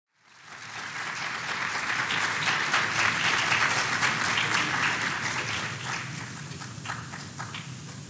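Audience applauding. It swells over the first couple of seconds and dies away to a few scattered claps near the end.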